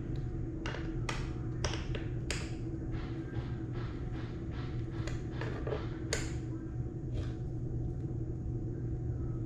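Chair bolts being turned with an Allen key: a series of short light clicks and scrapes, with a quick even run of small clicks in the middle, over a steady low hum.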